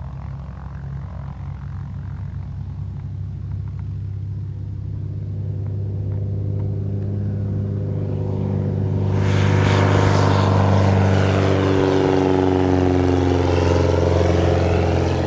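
Zenith STOL CH 750 light aircraft's engine and propeller running at takeoff power as the plane takes off and climbs past, growing louder, with a wide rush of propeller noise from about nine seconds in and the pitch dropping near the end as it goes by.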